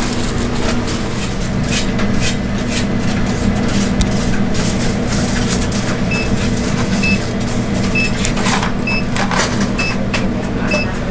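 Steady machine hum in a food stall, with scattered clicks and clatter. From about six seconds in, a short, high electronic beep repeats roughly once a second.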